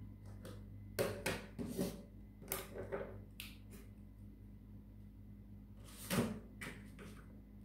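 A few soft knocks and clatters in two short clusters, over a steady low electrical hum.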